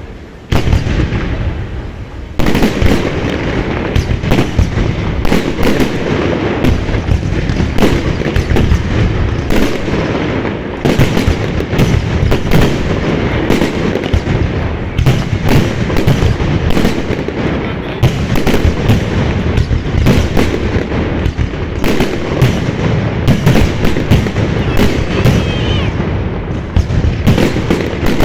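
Fireworks display going off in a dense, almost continuous barrage of bangs and crackling, with deep booms underneath, after a brief lull near the start.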